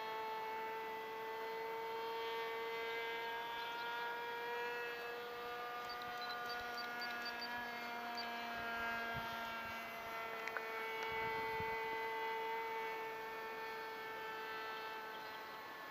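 Magnum XL 25 two-stroke glow engine and propeller of an RC model plane in flight, a steady high buzz whose pitch wavers a little as the plane flies about.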